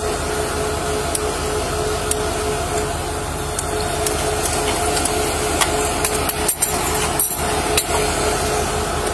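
Steady low hum of an idling vehicle engine, with scattered small clicks and knocks, about four of them between about six and eight seconds in.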